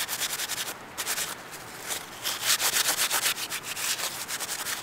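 A paper towel rubbed quickly back and forth over a wire-mesh stove fire grate to wipe off soot: a rapid scratchy rubbing in short strokes, easing off briefly about two seconds in.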